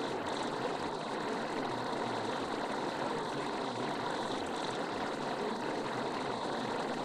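A steady, even rushing noise with no rhythm, tone or speech: a continuous masking background track.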